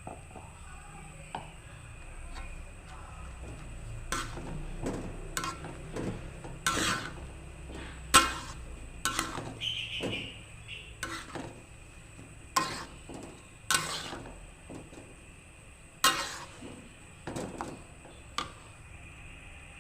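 Eating mie goreng instant fried noodles: a string of sharp, irregular clinks and clicks of a utensil against the bowl, about fifteen of them, the loudest about eight seconds in.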